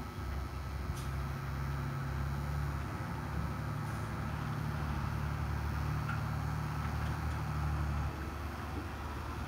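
Heavy diesel engine of the piling equipment running steadily under load while the spun pile is hoisted toward the rig, easing off about eight seconds in. No hammer blows are heard.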